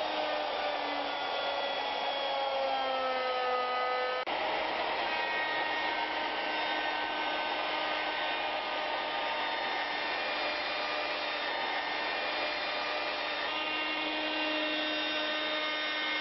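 Plunge router running and routing a molding profile in wood, a steady high motor whine over cutting noise. Its pitch sags over the first few seconds as the bit takes load. After a sharp break about four seconds in, it holds steady.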